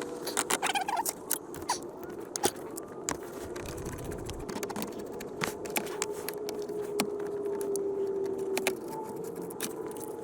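Repeated sharp clicks, taps and light rattles of plastic dashboard trim and tools being handled, over a steady hum.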